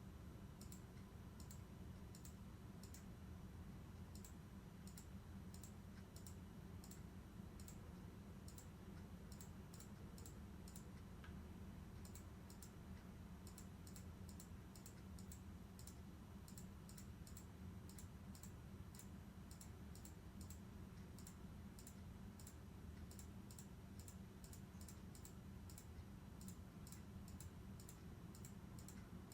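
Faint, quick clicking, about two clicks a second and then about three a second from a little under halfway through, over a low steady hum.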